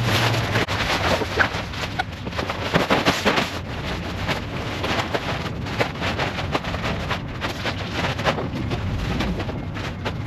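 Close, irregular rustling, clicks and knocks of camping gear being handled and packed away, rubbing and bumping near a clip-on microphone.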